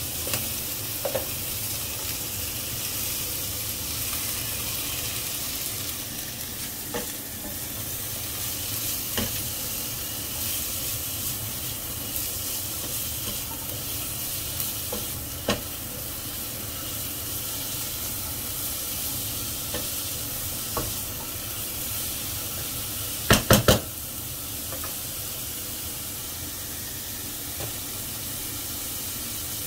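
Pumpkin and long beans sizzling as they stir-fry in a wok, with a silicone spatula scraping and tapping the pan now and then. About two-thirds of the way through comes a quick run of three loud knocks.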